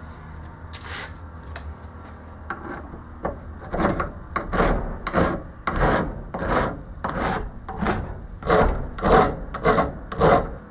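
Flat hand file rasping across a metal lathe headstock casting: a few light strokes at first, then from about four seconds in a steady rhythm of push strokes, a little under two a second.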